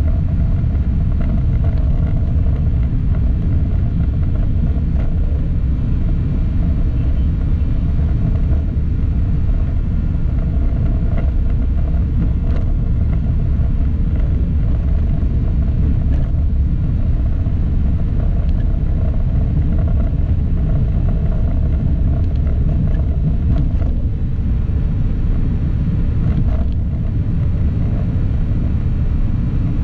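Steady rumble of a vehicle driving along a road, engine and road noise heavy in the low end, with no break.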